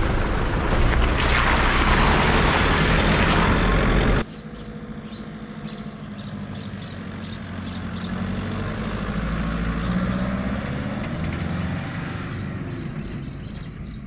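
A Nissan Patrol 4WD driving on a gravel bush track: for the first four seconds, loud tyre rumble and crunching on gravel with wind, heard close to the front wheel. Then, after an abrupt cut, the Patrol's engine and tyres on the dirt road approach, are loudest about ten seconds in, and fade as it drives away.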